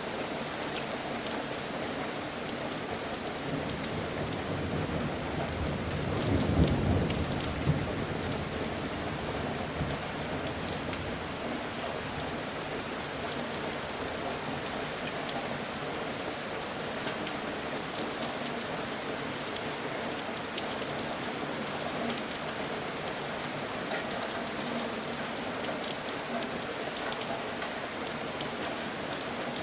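Steady rain falling. A low rumble of thunder swells a few seconds in and fades by about ten seconds in.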